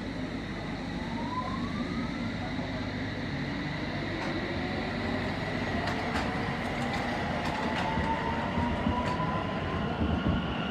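Electric train running at the station, its traction motors giving a rising whine that climbs slowly as it gathers speed. A few sharp clicks come in the second half.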